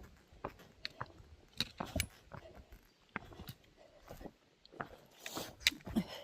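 Footsteps of a hiker walking a trail: a run of uneven crunching steps and sharp taps, with a brief rustle about five seconds in.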